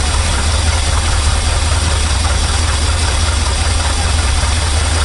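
Chevrolet C60 dump truck's engine idling steadily, a constant low hum.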